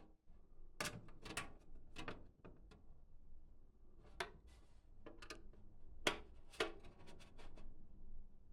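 About fifteen irregular clicks and knocks of hard PC parts being handled during a case swap, the loudest about six seconds in.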